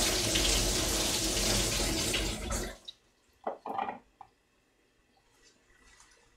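Kitchen tap running at full flow into a sink, then shut off abruptly a little under three seconds in, followed by a few short clunks.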